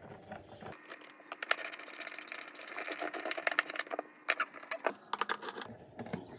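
Hard plastic parts of a Pentair Racer pool cleaner clicking and clattering as they are handled and fitted together. A quick run of sharp clicks and knocks starts about a second in and thins out near the end.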